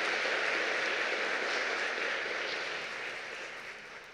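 Audience applauding, the clapping tapering off over the last second or so.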